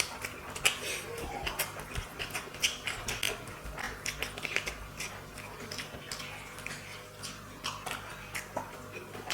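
Eating sounds of curry and rice eaten fast: a dense, irregular run of quick wet clicks and smacks from chewing and from fingers working the food, several a second.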